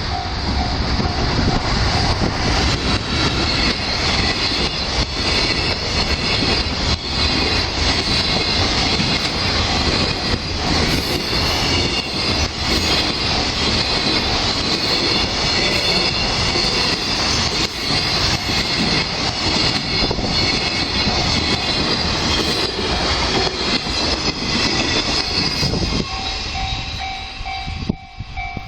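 Freight train passing over a level crossing, its wagons rumbling and clattering over the rails with a steady high squeal from the wheels. The noise eases near the end as the train clears, and the crossing's warning bell is heard ringing in steady repeated dings.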